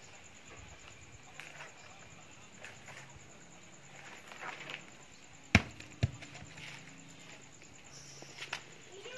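Rustling and scraping of a man climbing a coconut palm trunk, with two sharp knocks about half a second apart a little past the middle.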